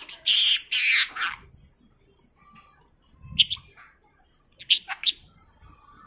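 Budgerigar chattering in its high, scratchy talking voice, with a loud burst of about a second near the start and short chirps about three and a half and five seconds in. The opening burst is the budgie saying its name, "Bibi bibi".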